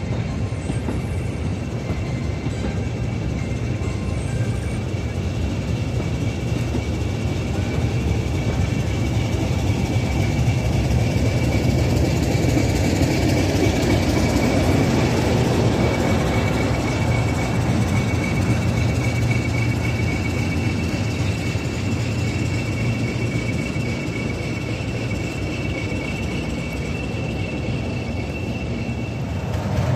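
A train of coaches rolls slowly past, and English Electric Class 40 diesel locomotive 40012 goes by at the rear about halfway through. Its engine runs under a steady high whistle from the turbochargers, which gives the class its 'Whistler' nickname. The rumble is loudest as the locomotive passes.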